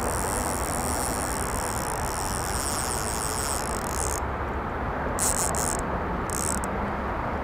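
Crickets chirping in a fast, high, pulsing chorus that stops about four seconds in, then comes back in two short bursts, over a steady rumble of background noise.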